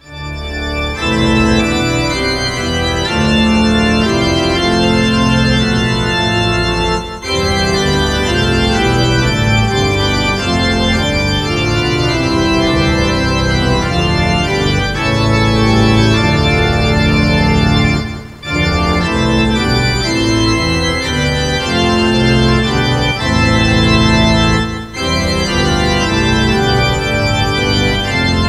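Organ playing sustained full chords, with brief breaks between phrases about 7, 18 and 25 seconds in.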